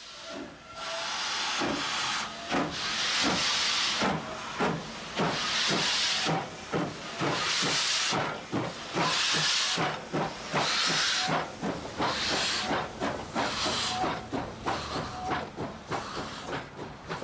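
CWD class 2-8-2 steam locomotive working its train on the move, steam hissing in loud repeated surges about every second or so, with lighter rhythmic knocks between them.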